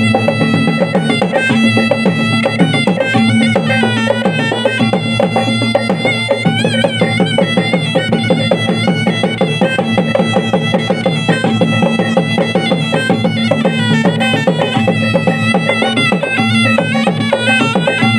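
Traditional Maros gendang drums beating a fast, even rhythm for the Tunrung Pamanca, with a reedy wind instrument playing a wavering melody over a steady low drone.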